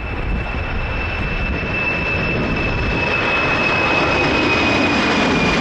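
Boeing 747's jet engines at takeoff thrust: a steady roar with a high whine that drifts slightly lower in pitch, growing a little louder.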